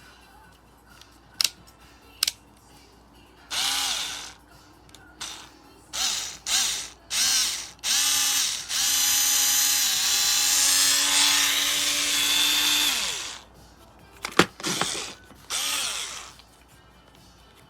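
A 4V cordless electric screwdriver's motor is triggered in several short bursts, each spinning up, then held for a steady run of about four seconds before winding down. A few sharp clicks come before and after the runs.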